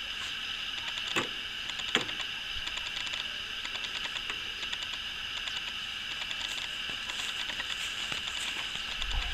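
Outdoor ambience: a steady, high insect-like chirring with fine rapid ticking, and two sharp clicks about one and two seconds in. No engine is running.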